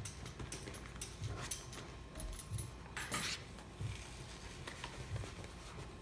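Live red sea urchin's spines clicking and tapping against a plastic cutting board as it moves: faint, irregular ticks, with a louder cluster about three seconds in.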